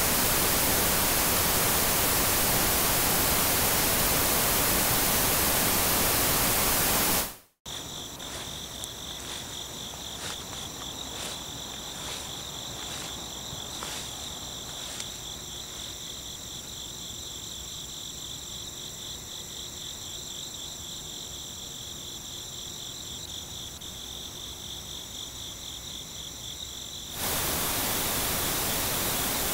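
Loud static hiss that cuts out after about seven seconds. Then a steady high chirring of crickets, with a run of light clicks over the next several seconds. The static hiss returns near the end.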